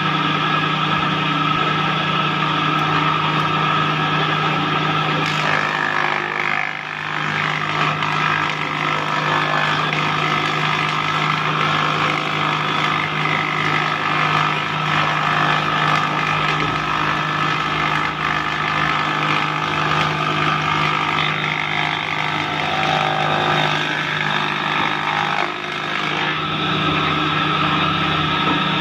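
Wood planer machine running steadily, a hum with a whine above it, as boards are fed across its cutter head and planed. The sound dips briefly twice, about six and twenty-five seconds in.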